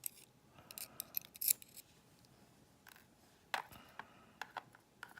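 Tweezers and small brass lock parts clicking and tapping as drivers and springs are pulled from the chambers of a disassembled Yale pin-tumbler cylinder. The clicks come scattered, bunched about a second in, with a few sharper ticks after the three-second mark.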